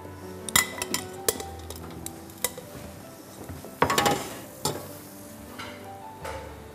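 Stainless steel pot, strainer and utensils clinking and knocking as broth is poured into the pot and stirred with a spoon: a string of separate sharp knocks, the loudest cluster about four seconds in.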